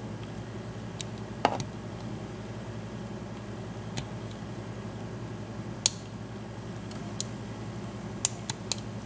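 Scattered small sharp clicks of a lock pick and tension wrench working the pin stacks of an old BEST 6-pin IC core padlock, with a few clicks close together near the end. A steady low hum runs underneath.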